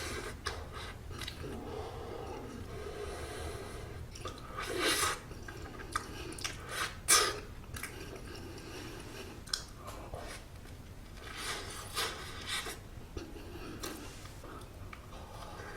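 Close-miked chewing of soft steamed buns (hoppang), with irregular wet mouth clicks and smacks; the loudest comes about seven seconds in.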